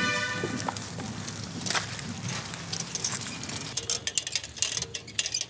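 Footsteps crunching and rustling through grass and dry ground, with scattered sharp clicks and light metallic clinks over a low steady rumble. A brief pitched ringing tone sounds at the very start.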